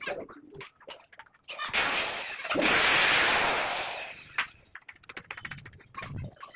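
A handheld power tool runs for about two and a half seconds, starting about a second and a half in and fading out, with scattered knocks and taps of carpentry work around it.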